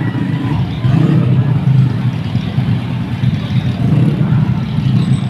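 Many small motorcycles and scooters riding past in a continuous stream, their engines blending into a steady, loud drone.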